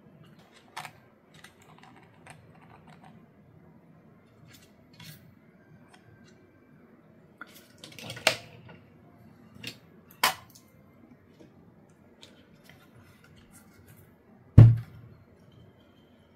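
Scattered clicks and light knocks from a car door speaker's plastic frame and a soldering iron being handled on a towel-covered work mat, with one heavy thump near the end.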